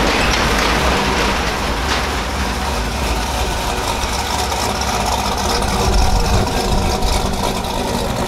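Chevrolet Silverado 'cat eye' pickup's engine idling and running slowly through an aftermarket Carven exhaust, swelling briefly about six seconds in.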